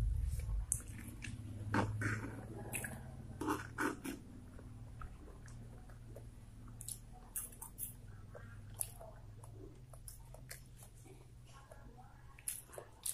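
A person chewing and eating spicy fried instant noodles and rice: wet mouth smacks and chewing clicks, busiest in the first few seconds and again near the end, over a steady low hum.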